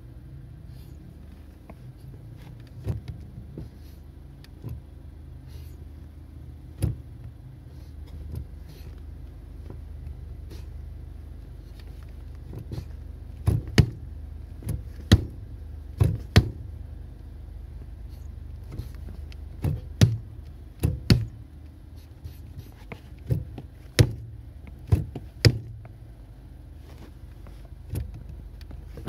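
Car engine idling with a steady low hum while a foot pumps the pedal, giving a string of short, sharp knocks and clicks from the pedal and sneaker, irregular and thickest in the second half.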